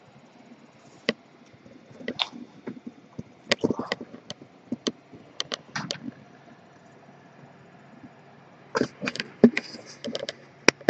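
Irregular clicks and knocks of hands and camera handling against a PC case, with a cluster of them near the end, over the faint steady hum of the running computer.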